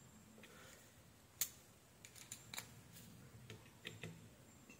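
Faint, scattered small clicks and taps, with one sharper click about a second and a half in and a few more in the middle: fingers handling a switch-mode power supply circuit board on the bench.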